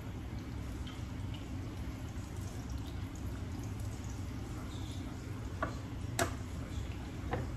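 Quiet kitchen handling while rolling chicken taquitos: three light clicks of utensils or dishes in the second half, over a steady low hum.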